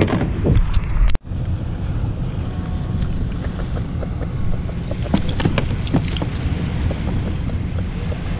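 Wind buffeting an action camera's microphone on a kayak on open water: a steady low rumble with hiss and a few scattered light knocks. The sound cuts out abruptly about a second in, then the same rumble resumes.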